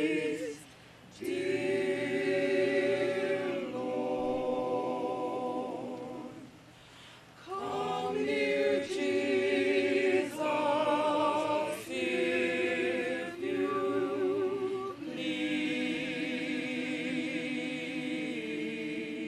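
Mixed choir of men and women singing unaccompanied in held chords, the phrases broken by two short breaks: one about a second in and a longer one around six to seven seconds.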